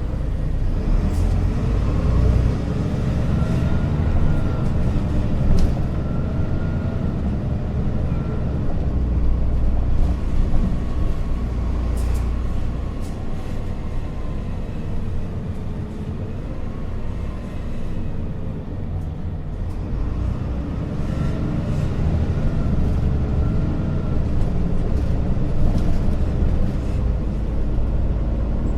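Interior of a Japanese local bus under way: a steady low engine and road rumble, with a faint whine that rises and falls in pitch as the bus speeds up and slows, and a few short rattles.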